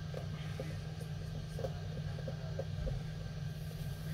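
Steady low hum, with a few faint short ticks over it.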